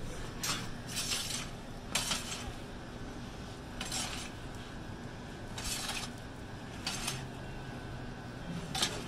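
Metal pizza turning peel scraping and clinking against the floor and mouth of a wood-fired pizza oven as pizzas are turned, in a series of short irregular scrapes with a sharper clink about two seconds in and another near the end. A steady low hum runs underneath.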